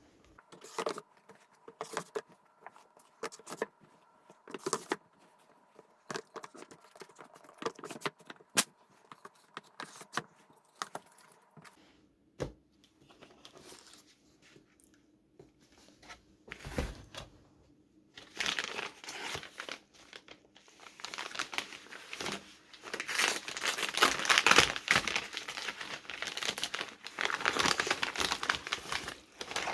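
Packaging being torn open and crumpled. At first there are scattered rustles and clicks; from about two-thirds of the way through it becomes continuous, louder crinkling.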